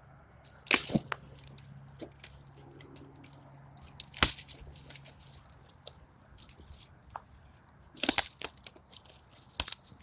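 Dry sticks being snapped by hand: a sharp crack about a second in, another around four seconds, then a quick cluster of cracks near the end.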